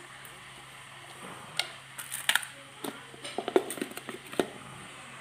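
Hands picking up and setting down small plastic sauna-steamer parts on a tile floor: scattered light taps, clicks and rustles, coming in quick runs about two seconds and three and a half seconds in.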